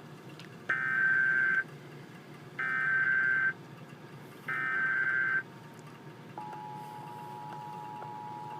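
Emergency Alert System tones: three bursts of SAME header data, each just under a second long and about two seconds apart, then the steady two-tone EAS attention signal starts about six and a half seconds in and holds.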